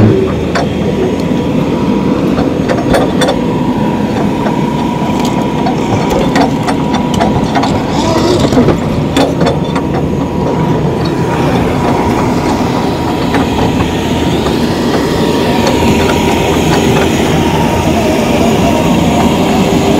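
Hydraulic excavator's diesel engine running steadily at close range, with a constant whine over the engine noise and scattered knocks in the first half.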